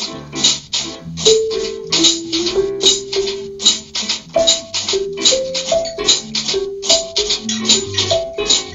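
Small jazz combo playing a swing tune: marimba melody, acoustic guitar, walking electric bass and drums, with a cymbal keeping time about twice a second.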